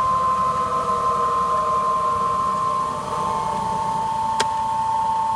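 Krantz 120 cm extractor running on a test run: a steady machine whine with lower hum over a noisy background. The whine drops slightly in pitch about three seconds in, and a single sharp click comes about four seconds in.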